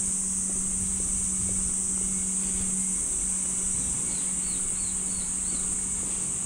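Steady high-pitched drone of cicadas in the trees, with a low rumble of wind on the moving microphone. About four seconds in, a bird gives five quick chirps.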